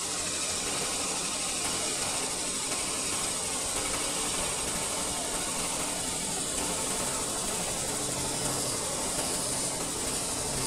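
CNC double-roll metal spinning machine running, its steel workpiece spinning on the mandrel against the forming rollers: a steady, hissing mechanical noise.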